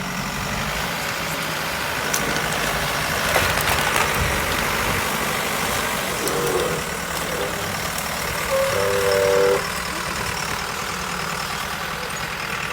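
Heavy truck engine idling steadily, with a brief pitched tone lasting about a second roughly two-thirds of the way through.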